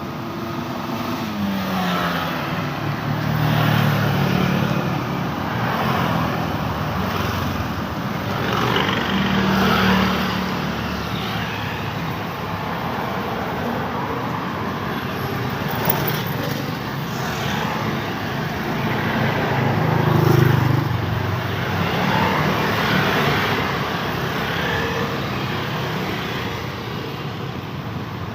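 Steady traffic on a busy road, with motor vehicles passing close by one after another. Their engine and tyre sound swells and fades every several seconds.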